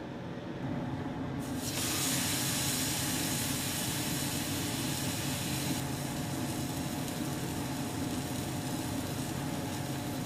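Porterhouse steak sizzling on the hot sear plate of a Montague Legend C36 overfired broiler. The sizzle starts about one and a half seconds in and eases a little after about six seconds, over a steady low hum.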